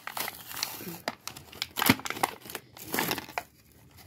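Toy packaging crinkling and being torn open by hand, in irregular rustles and crackles, the loudest about two seconds in.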